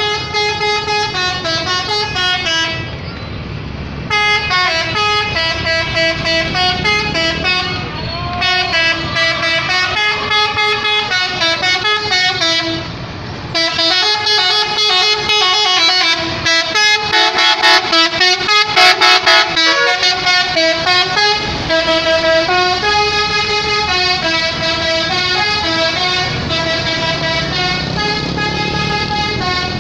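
Bus 'telolet' horn, a set of multi-tone air horns playing a stepping tune, with brief pauses about three and thirteen seconds in and a run of rapid short blasts around the middle.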